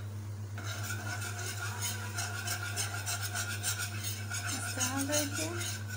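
A wire whisk stirring flour into hot, bubbling oil in a metal pan, in quick, regular strokes that scrape the pan, over a light sizzle: the flour-and-oil roux that starts a cheese sauce.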